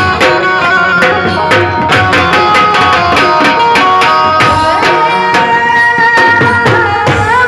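Live garba band music: rope-tensioned barrel drums (dhol) beaten in a fast, driving rhythm through a sound system, with a melody of long held notes over the drumming.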